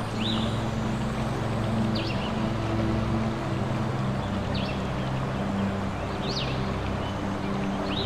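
Soft ambient music with low held notes, over a steady background hiss, with short high bird chirps about every one and a half to two seconds.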